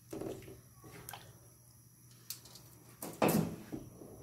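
Cooking handling noises at an aluminium stockpot of chicken soup: a wooden spoon stirring and knocking in the pot, then a louder scrape-and-clatter about three seconds in as the pot is taken by its handle with an oven mitt.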